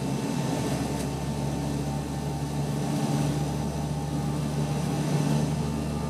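Steady drone of a Bombardier Dash 8-100's turboprop engines and propellers in flight, heard inside the cabin from a seat right beside the propeller. A strong low hum runs under it, with a deeper hum that briefly dips every couple of seconds.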